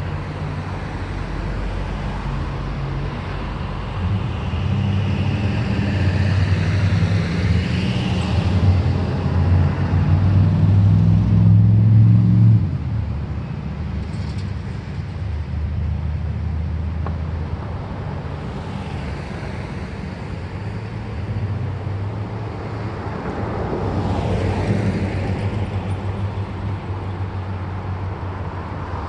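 Road traffic with cars and pickup trucks driving past. A steady low engine drone is loudest in the first half and drops away suddenly a little before halfway. Vehicles pass close by about a quarter of the way in and again near the end.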